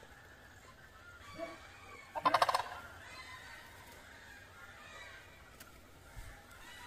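A sandhill crane gives one short, loud, rattling call a little over two seconds in.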